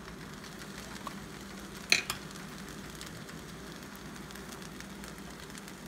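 Thick jarred pasta sauce being poured from a glass jar onto cooked spaghetti in a pot, with a sharp clink about two seconds in and a smaller one just after, over a steady low hum.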